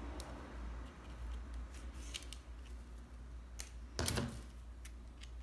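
Faint rustling and small clicks of hands working a needle and thread through grosgrain ribbon, then a louder knock about four seconds in as a pair of scissors is picked up from the table.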